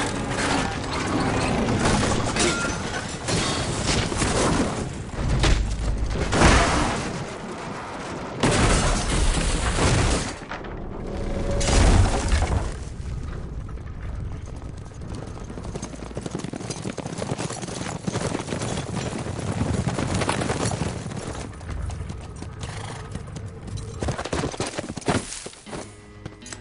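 Action-film sound mix of a horse-drawn armored stagecoach overturning: heavy crashes and splintering, with gunfire and music underneath. The loudest impacts come in the first half, and the second half is quieter with scattered sharp reports.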